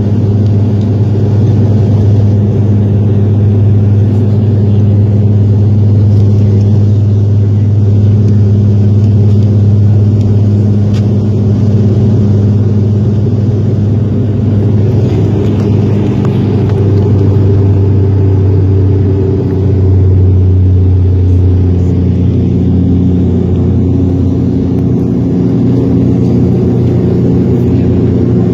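Loud, steady drone of a Bombardier Dash 8 Q400's Pratt & Whitney PW150A turboprops and six-blade propellers heard inside the cabin. The propeller hum drops slightly in pitch about twenty seconds in.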